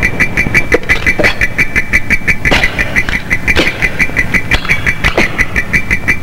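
Electronic sci-fi sound effect: a steady high pulsing tone, about six pulses a second, over a low throb, with short falling glides roughly once a second.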